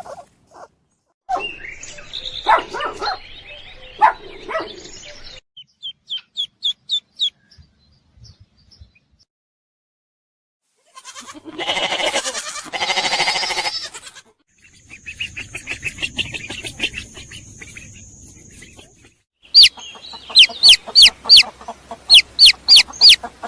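A string of short animal sound clips, mostly birds chirping and clucking, with quick runs of sharp, repeated chirps and one harsher, noisier call in the middle.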